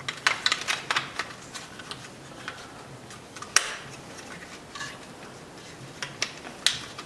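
Plastic clicks and taps from handling a power window switch assembly and its bezel: a quick run of clicks in the first second, a single sharp click about three and a half seconds in, and a few more near the end.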